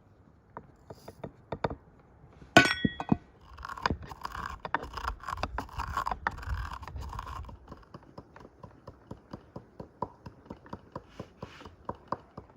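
Kitchenware being handled: clinks and knocks of dishes and utensils, with one loud ringing clink about two and a half seconds in and a stretch of rustling and scraping in the middle. Near the end comes a steady run of light knocks, about two or three a second.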